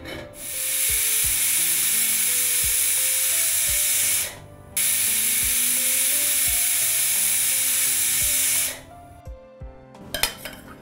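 Stovetop pressure cooker whistling twice: two long, loud hisses of steam, each about four seconds, with a short break between them. Two whistles mark the soaked chana dal as cooked. Near the end, a steel pot and ladle clink over a metal strainer.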